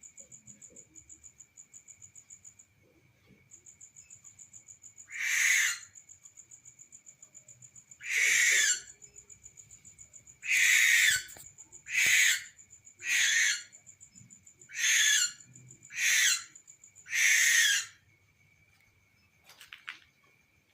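A night bird giving a series of eight harsh, hissing screeches, each about half a second to a second long, a second or two apart.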